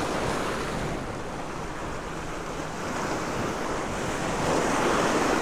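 Surf breaking and washing over the jetty's granite boulders, a steady rush of seawater that dips slightly and then swells louder near the end.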